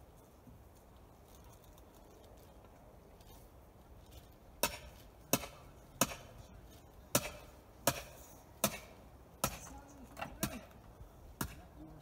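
Regular hammer blows, about one every three-quarters of a second, starting about four and a half seconds in: a metal piece being beaten into the ground beside a mobile home's screw-in ground anchor.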